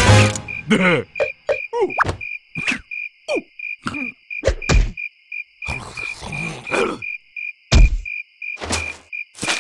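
Cartoon sound effects: a steady insect-like chirping about three or four times a second, under short squeaky falling-pitch vocal noises from the cartoon larva and a few rustles, with one loud thump near the end.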